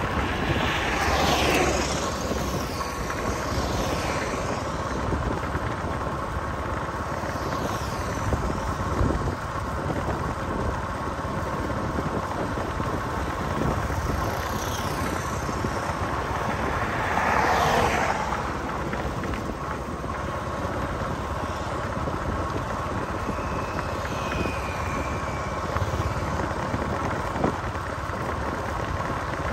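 Road traffic heard while driving: a steady hum of engine and road noise, with other vehicles swelling past, loudest about a second in and again a little past the middle.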